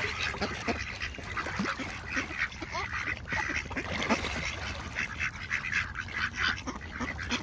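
A flock of ducks quacking, many short calls overlapping in a continuous chatter as they crowd round to be fed corn.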